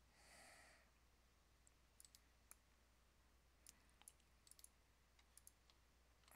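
Faint computer mouse clicks over near silence: about ten scattered single and paired clicks, after a soft breath near the start.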